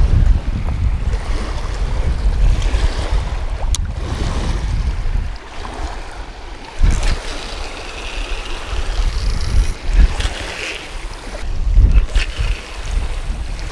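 Wind buffeting the microphone in gusts over small waves lapping against a rocky lake shore, with one sharp click about four seconds in.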